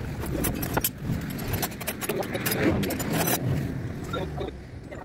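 Hand tools and metal parts clinking and rattling, a string of sharp metallic clicks, as a mechanic works under a truck to take out its transmission.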